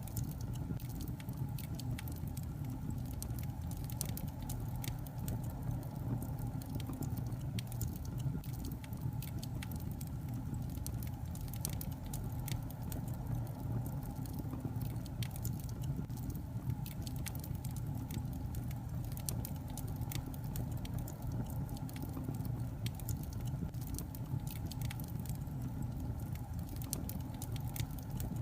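Logs burning in a fireplace, crackling with frequent, irregular sharp pops and snaps over a steady low rumble of the fire.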